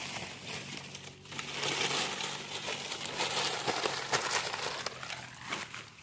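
Dry leaves crinkling and rustling as they are handled and piled onto a small campfire, a dense, continuous crackly rustle.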